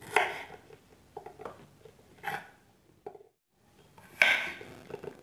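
Knife cutting chillies, tomatoes and shallots into pieces on a cutting board, in irregular knocks, the loudest at the start and about four seconds in.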